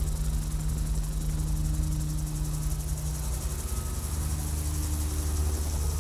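Steady engine drone: an even, low hum with a thin high whine above it.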